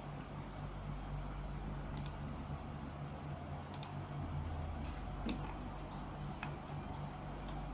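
Steady low hum with a few faint, irregularly spaced clicks.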